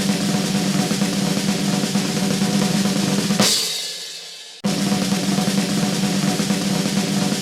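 Snare drum roll, a fast even roll that ends about three and a half seconds in on a loud final hit, which rings out and fades for about a second; then a new roll starts and carries on.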